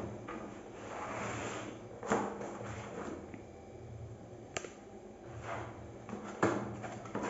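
Small cardboard box handled and its tuck-in flap pried open: cardboard rubbing and scraping, with a few sharp taps and clicks spread through it.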